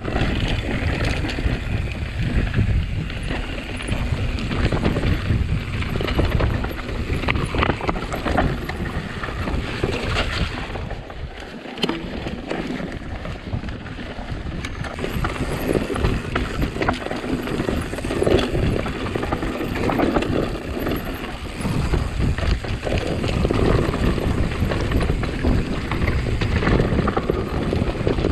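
Mountain bike being ridden. Wind buffets the microphone while the tyres rumble and the bike rattles and clicks over an uneven track.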